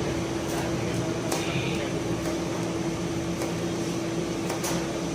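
Electric arc welding on thick metal: a steady hiss and crackle over a steady hum, with a few sharper pops.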